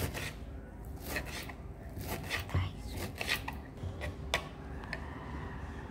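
Kitchen knife chopping spinach and green chillies on a cutting board: irregular taps of the blade against the board, a few a second.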